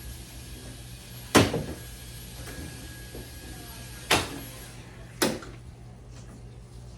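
Three sharp knocks from work on a car's rear door and its trim, about 1.5, 4 and 5 seconds in, each with a brief ring after it; the first is the loudest.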